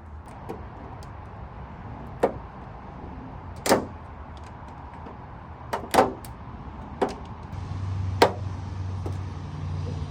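Sharp plastic clicks and knocks, about six in all, as a third brake light housing is handled and set into place. Near the end a steady low hum with a faint hiss comes in underneath.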